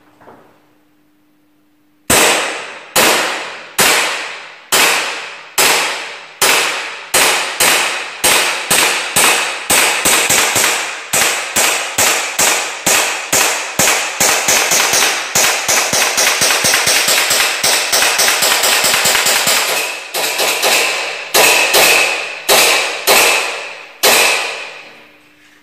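KJ Works Colt Hi-Capa gas-blowback airsoft pistol fired shot after shot, each a sharp crack as the slide cycles. The shots come about one a second at first, then in a fast string of four or five a second, then slow again and stop near the end, as a 50-round long magazine is emptied.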